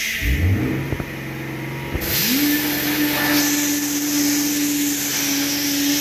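A small electric blower motor, like a shop vacuum's, starts with a rising whine and cuts out about a second in. After a click it starts again and spins up to a steady whine with rushing air.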